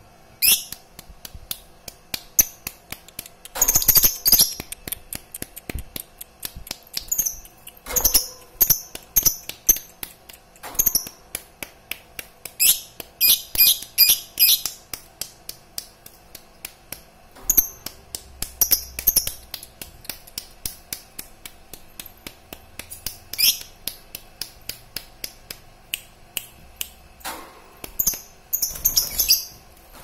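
A caged masked lovebird chirping: sharp, high-pitched chirps and clicks in quick bursts with short pauses between, some bursts fast runs of several calls.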